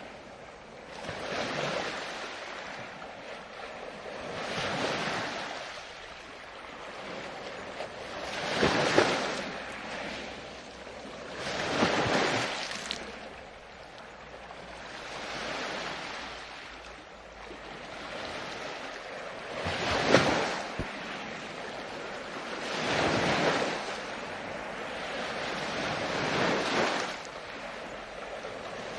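Ocean waves breaking and washing on a shore, a rushing surge that swells and fades about every three to four seconds, some breakers louder than others.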